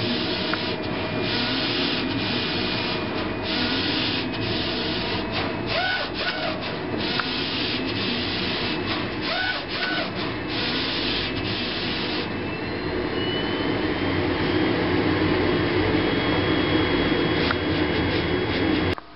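HP DesignJet 510 inkjet plotter printing its printhead alignment page: the printhead carriage and paper feed working in runs of hissing mechanical noise that start and stop about once a second for the first twelve seconds, then run on steadier. It stops abruptly just before the end.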